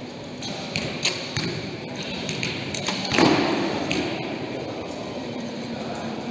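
Compound bows being shot in a large sports hall: a run of sharp clicks and snaps, with one louder thump about three seconds in that rings on briefly in the hall.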